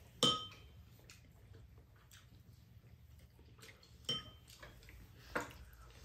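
Spoon and chopsticks clinking against ceramic bowls while eating. A sharp ringing clink comes just after the start, another about four seconds in and a third a second later, with light taps in between.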